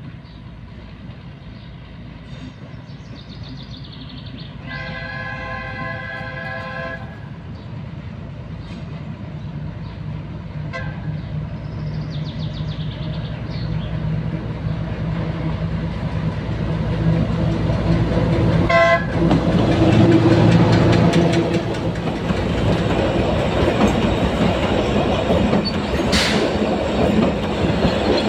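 TU2 narrow-gauge diesel locomotive approaching and passing. Its horn gives one long chord blast about five seconds in and short toots later. The diesel engine's running grows louder as it nears, loudest around twenty seconds in, then the passenger cars roll past with wheels clicking over the rail joints.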